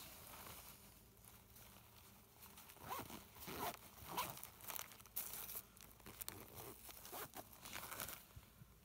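Fabric first-aid pouch being packed and zipped shut: faint rustling of packets going back in and a zipper pulled closed in several short strokes.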